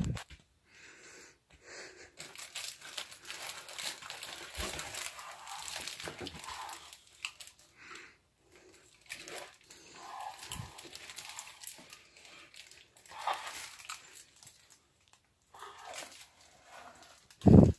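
Rustling, crinkling and scraping handling noise from a camera being swung and rubbed against clothing and objects, with a loud bump near the end.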